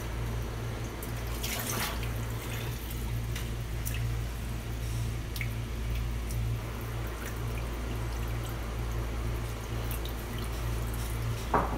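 Kitchen tap running a thin stream into the sink, water trickling and dripping as cooked spaghetti is rinsed and drained in an aluminium colander, over a steady low hum. A short knock near the end.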